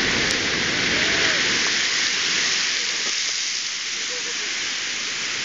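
Spray from an erupting Strokkur geyser falling back around the vent, a steady hiss of water and steam that eases a little toward the end.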